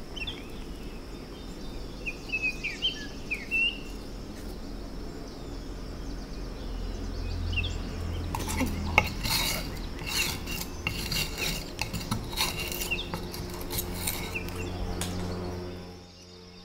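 Metal palette knives scraping and clicking against each other and a wooden palette as thick paint is scraped off and pushed into the palette's wells, with the scrapes coming in an irregular run in the second half. A few bird chirps sound in the background.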